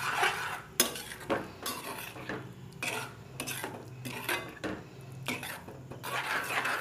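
A spatula stirring thick masala gravy in a metal kadai, scraping the bottom and knocking against the side of the pan in irregular strokes.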